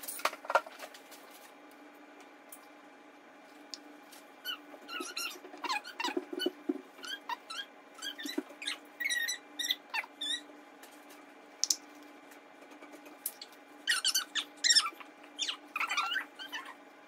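Short high-pitched squeaks and chirps, scattered irregularly, busiest from about four to ten seconds in and again near the end, over a faint steady hum.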